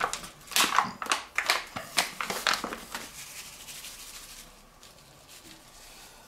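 A foil-lined paper bag of dry barbecue rub crinkling and rustling in the hands as it is handled and opened, for about the first three seconds. After that there are only faint sounds as the rub is shaken out onto raw pork belly.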